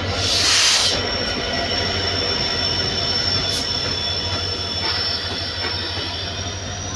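A diesel-hauled passenger train pulling into a station: a loud rush of noise in the first second as the locomotive goes by, then the coaches roll past with a steady high-pitched wheel squeal that rises slightly near the end, over a low engine thrum, as the train slows on arrival.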